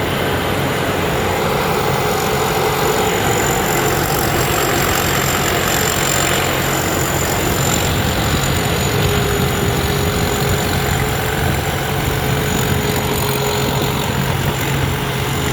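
Rice combine harvester's 260 hp diesel engine and threshing machinery running steadily, with a constant high-pitched whine over the engine.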